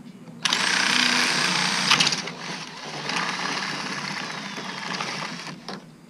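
Power drill with a 21/64-inch bit drilling out a hole in an RV awning roller tube, enlarging it. The motor starts about half a second in, runs hardest for a second or two, then keeps going more quietly and stops just before the end.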